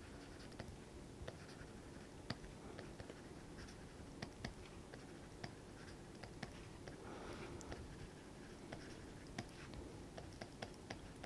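Faint scratching and small scattered taps of a stylus writing on a pen tablet.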